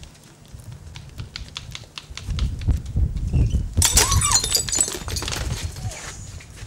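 Hurried footsteps of several people running down stone steps: many quick, irregular clicks over a low rumble, with a loud noisy burst about four seconds in.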